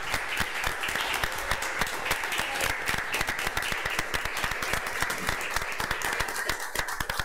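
Applause from a small roomful of people, many hands clapping together steadily, thinning to a few scattered claps near the end.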